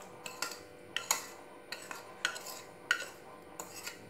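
A steel spoon stirs chopped coriander, mint and green chilli, clinking against the ceramic bowl and the glass in irregular taps about twice a second.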